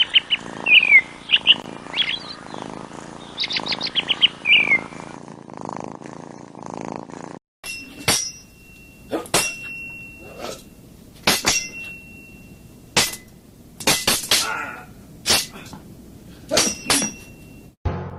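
Baby chicks peeping, quick runs of high chirps and short falling peeps, for the first seven seconds or so. Then a cleaver chopping raw meat on a wooden cutting board, about a dozen sharp chops roughly a second apart, some leaving a brief ringing tone.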